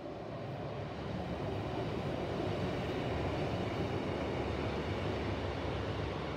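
Class 156 Sprinter diesel multiple unit passing, its diesel engine and wheels on the rails making a steady noise that grows louder about a second in and then holds.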